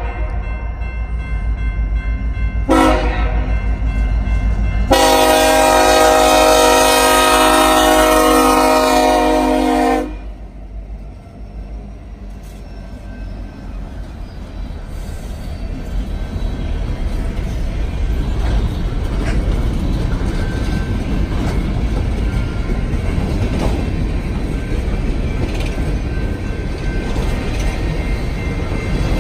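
Freight train's diesel locomotive sounding its multi-chime horn: a short blast about three seconds in, then a long blast of about five seconds, the close of a grade-crossing signal. Then the train's rumble and wheel noise build steadily as it draws nearer.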